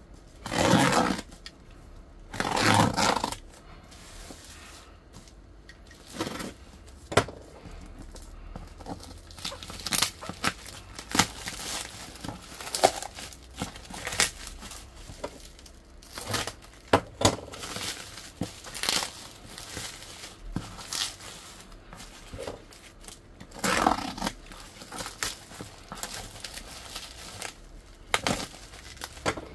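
Packing tape and black plastic bin-bag wrapping being cut and torn off a parcel, with loud tearing rips about a second in, again about three seconds in and once more near the end. Between the rips the plastic and bubble wrap crinkle and crackle as they are pulled away from the cardboard box.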